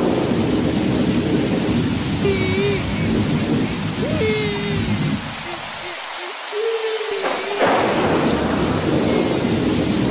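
Heavy rain with rolling thunder, a loud, dense storm sound effect, dipping briefly in its low rumble after the middle. Over it come several short, wavering crying wails, the meme's crying-cat sound.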